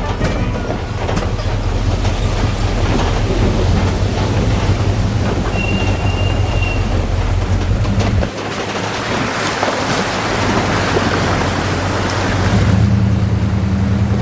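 A 4x4's engine running at low trail speed, with the clatter of rolling over a rough dirt track. About eight seconds in, water splashing and rushing as the vehicle fords a shallow creek, and the engine drone comes back near the end.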